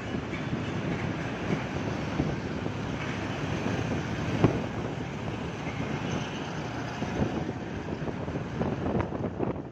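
Wind rushing over the microphone and road noise from a motorcycle riding in city traffic, with a brief sharp knock about four and a half seconds in.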